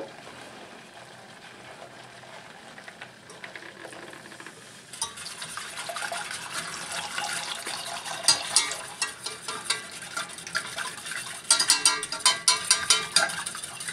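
Milk going into a hot butter-and-flour roux in a saucepan, with a soft sizzle that swells about five seconds in. It is being stirred briskly, the utensil clicking rapidly against the pan, thickest near the end.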